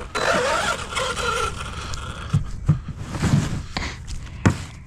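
A radio-controlled truck's electric motor whines briefly over scraping noise, followed by several short knocks.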